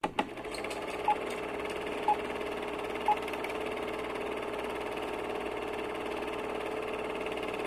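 Film-projector sound effect: a steady whirring rattle. Three short beeps a second apart sound early on, like a countdown leader, and there are a couple of clicks at the very start.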